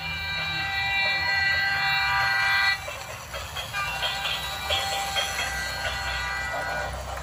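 Battery-powered toy trains running on their tracks, their built-in sound units playing a tinny electronic tune over the low hum of the motors and wheels. The tune holds steady tones for the first few seconds, then turns choppier.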